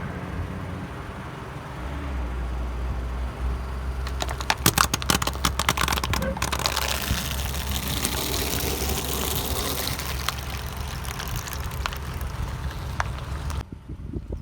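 Car engine running low and steady while its tyre rolls over and crushes objects, with a burst of sharp cracking and crackling about four to six seconds in. The sound cuts off suddenly near the end.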